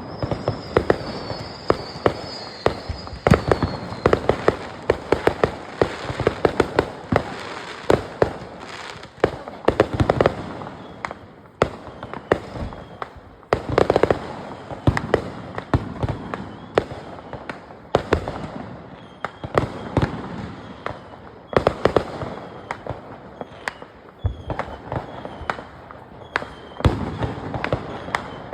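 Fireworks and firecrackers going off in a long, dense run of sharp cracks and bangs, many overlapping. A thin falling whistle sounds in the first few seconds.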